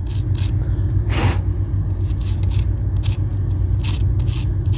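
Knife blade scraping rock away from around a fossil bird bone in short, quick strokes, with one longer, louder scrape about a second in. A steady low rumble runs underneath.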